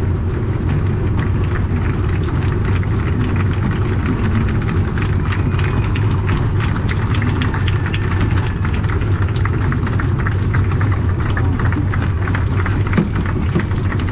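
A modified V8 engine in a competition pulling tractor, running steadily at low revs, heard from inside the cab.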